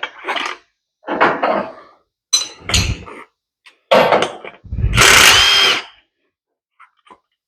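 Impact wrench (rattle gun) run in about five short bursts to undo a nut on a front strut assembly, the last burst the longest and loudest, followed by a few faint clicks.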